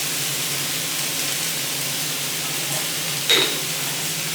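A pan of food sizzling steadily on the stove, with one sharp, ringing metallic clink a little past three seconds in.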